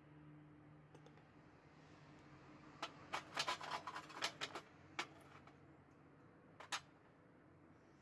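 A metal skimming tool clattering and tapping on a metal baking tray: a quick run of clicks about three seconds in, a single tap, then a quick double tap near the end, knocking off dross skimmed from molten aluminium.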